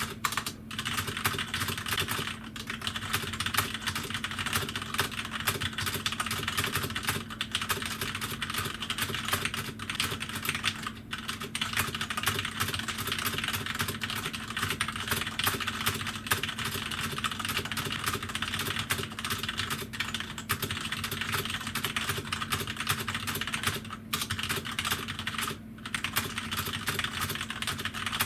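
Very fast typing on a Corsair K65 mechanical keyboard with linear Cherry MX Red switches: a dense, unbroken stream of key clacks, with a few short pauses.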